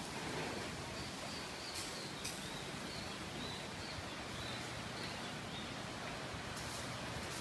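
Steady outdoor background noise with a few faint clicks.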